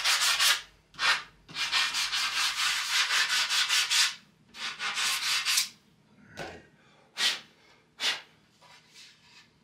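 Sandpaper rubbed by hand along the edges of a wooden board: quick back-and-forth scratchy strokes, run together for a couple of seconds in the middle, then fainter single strokes a second or so apart near the end.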